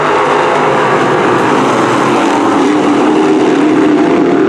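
A pack of sportsman dirt modified race cars with 602 crate V8 engines racing at speed. Several engine notes overlap, and one grows louder in the second half.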